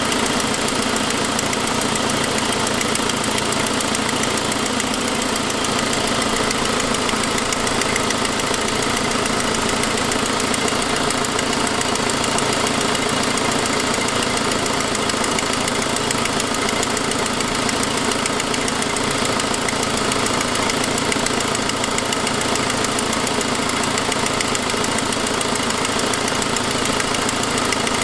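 2006 Saab 9-5 engine running steadily, with the leak noise from the exhaust header. The leak comes from a broken forwardmost exhaust stud, and the noise is easily taken for lifter noise.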